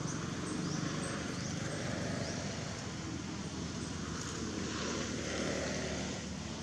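Steady outdoor background rumble with a low hum, with a few faint, short high chirps on top.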